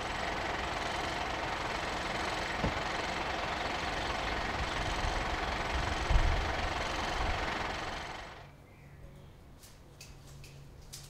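An engine runs steadily at idle with a low rumble. About eight seconds in, it gives way to a much quieter background with a faint low hum.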